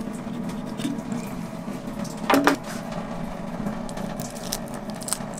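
Fillet knife cutting along a sunfish's fin to take out the fin and pin bones: soft scraping and small clicks, with one short louder sound a little over two seconds in, over a steady low hum.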